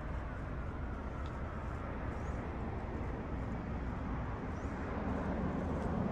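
Steady noise of street traffic passing, growing a little louder near the end.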